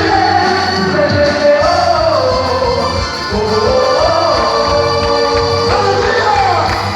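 Loud music with a sung melody over a steady beat, the soundtrack of a quadrilha junina dance performance.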